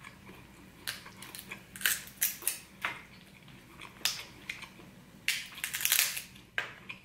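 Close-miked wet chewing and smacking of king crab meat, in short irregular bursts that are busiest about five to six seconds in.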